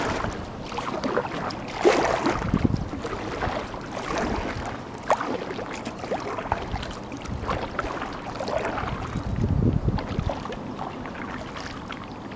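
Kayak paddle strokes in the water beside a plastic sit-on-top fishing kayak (Hunter Fishing Up): irregular splashing, dripping and swishing that swells with each stroke.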